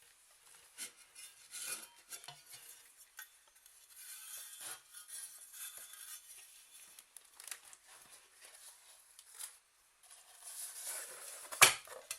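Cookware and utensils being handled: scattered light clinks, scrapes and knocks, with one sharp louder clink near the end.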